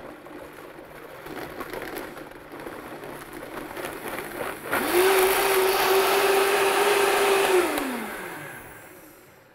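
High-powered countertop blender puréeing a thick sauce: it runs at a lower speed, growing gradually louder, jumps to full speed about halfway with a loud, steady hum, then is switched off and winds down with a falling whine near the end.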